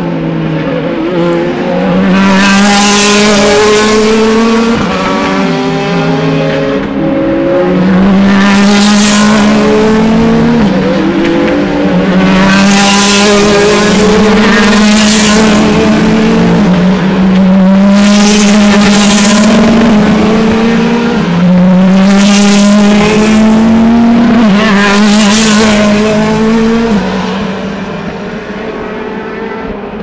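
DTM touring cars with 4.0-litre V8 race engines accelerating past one after another. Each engine's pitch climbs, drops at a gear change, then climbs again, and the loudest pass-bys come every few seconds. The sound fades about three seconds before the end.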